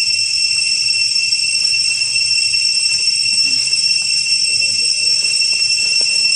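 A steady, high-pitched whine with overtones, unbroken and unchanging throughout.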